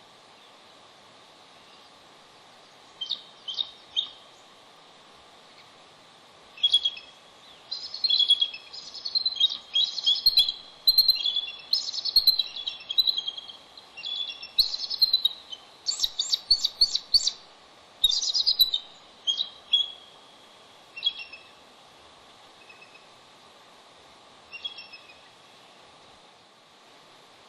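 A mated pair of bald eagles calling back and forth at the nest as they change over on incubation: bursts of high, rapid, chattering calls. The calls start about three seconds in, come thickest through the middle, and trail off to a few short calls near the end, over a steady background hiss.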